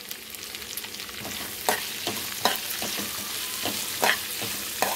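Onions and tempering sizzling in hot oil in a kadai, with a spatula scraping and knocking against the pan as they are stirred, the knocks starting about a second in.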